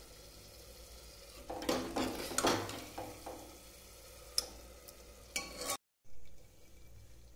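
Metal ladle scraping and stirring a thick, fully cooked onion-tomato masala in an aluminium pressure cooker, over a faint sizzle. There are a few bursts of scraping, with a sharp clink about four and a half seconds in, and the sound cuts out briefly near the end.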